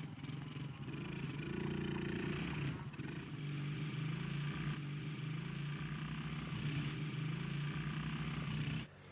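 Engines of two KXD 125 cc quad bikes, small single-cylinder four-stroke units, running steadily as the ATVs ride over rough dirt, with a brief rise in revs about a second and a half in. The engine sound cuts off suddenly near the end.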